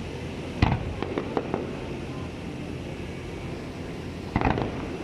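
Fireworks shells bursting: a sharp bang about half a second in, a quick run of smaller pops just after, and another bang near the end, over a steady low background noise.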